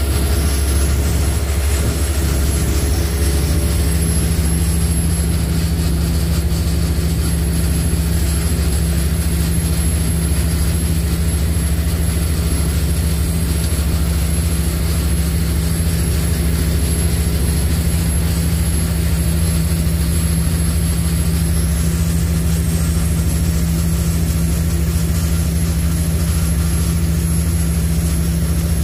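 High-speed passenger ferry's engines running at cruising speed, heard on board as a loud, steady low drone that does not change, with a thin steady high whine above it.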